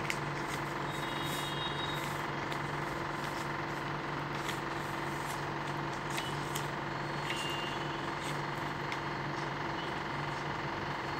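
A steady mechanical hum with a few fixed tones, unchanging throughout, with scattered light clicks and crinkles of paper being folded and creased by hand.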